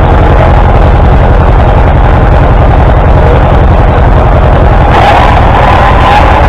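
A large engine running steadily and very loud at the microphone, with a strong low rumble and no change in speed.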